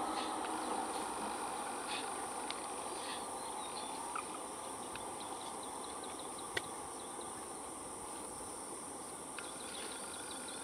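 Steady high-pitched shrilling of insects such as crickets or cicadas, with scattered short high chirps and one sharp click about six and a half seconds in.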